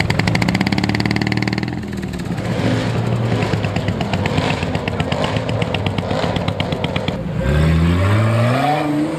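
Sports car engine running with a rough, rapidly pulsing exhaust note, then revving hard about seven seconds in, its pitch climbing.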